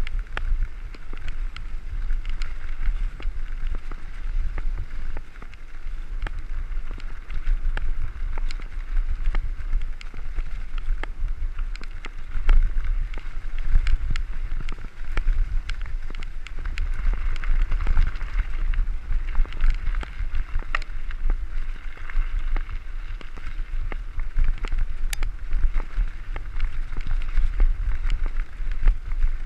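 Mountain bike rolling fast over a gravel and dirt road: tyres crunching and hissing on the gravel, with many small clicks and knocks from stones and the rattling bike. Wind rumbles steadily on the microphone.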